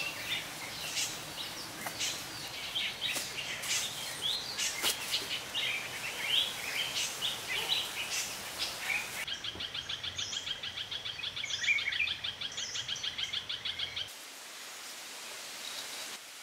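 Forest ambience of birds chirping and calling, with a few sharp clicks. About nine seconds in it changes to a rapid, even pulsing trill. Near the end it drops to a quieter steady hiss.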